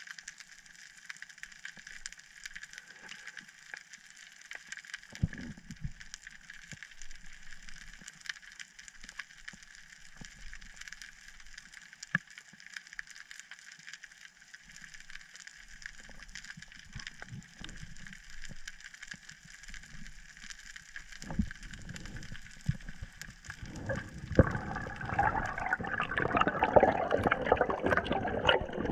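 Underwater sound picked up by a camera in a waterproof housing: a steady faint hiss with scattered small clicks. Over the last few seconds it gives way to a louder rush of water and bubbling as the diver swims up towards the surface.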